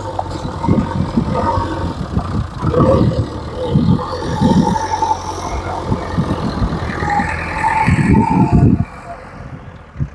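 JCB 3DX backhoe loader's engine running, with irregular low knocks and thuds over it. The level drops sharply about nine seconds in.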